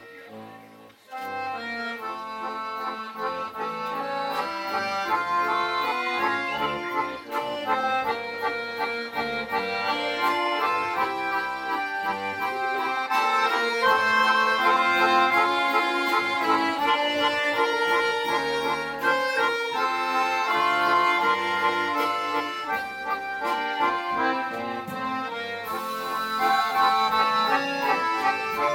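Accordion orchestra playing together. The sound drops briefly about a second in, then the full ensemble comes in and plays on in sustained chords.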